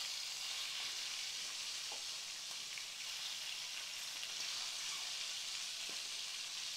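Hot oil sizzling steadily around cherry tomatoes and cumin seeds in a wok, with an occasional faint pop.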